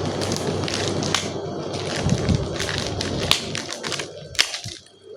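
Wide tape being pulled off the roll and pressed onto a paper sheet, with crackles and short tearing sounds. A steady low rumble underneath fades out near the end.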